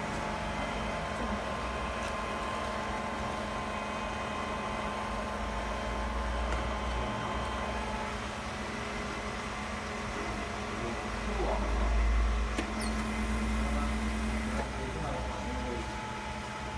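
Steady electrical machine hum with several steady tones, the running of workshop equipment such as a BGA rework station. Low rumbles come in about six seconds in and again about twelve seconds in.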